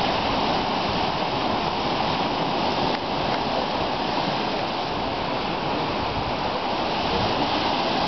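Black Sea surf washing in and foaming along the shore, a steady rush of water.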